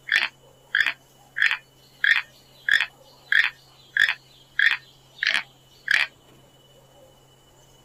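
An animal calling: a series of ten short, evenly spaced calls, about three every two seconds, each a brief rasping note.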